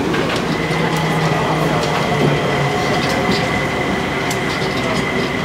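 Inside a moving MIA Mover car, a rubber-tyred automated airport people mover, running along its elevated guideway: a steady running rumble with a thin steady whine and scattered light clicks and rattles.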